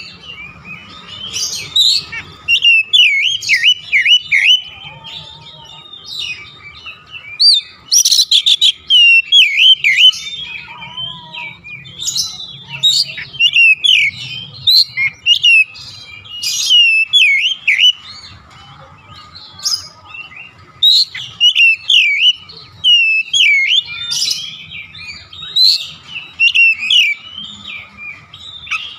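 An oriental magpie-robin (kacer) singing loudly: short phrases of rapid whistles that swoop up and down, with sharp chirps, repeated every second or two with brief pauses between them.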